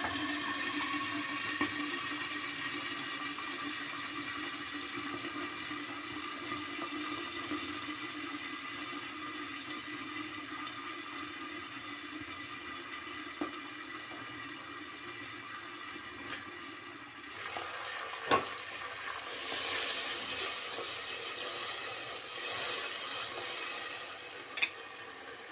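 Water added to golden-brown fried onions in hot oil, sizzling and bubbling in a covered steel pot, with a steady hiss that slowly dies down. About 18 seconds in there is a clink, then louder hissing surges as a wooden spoon stirs the onions.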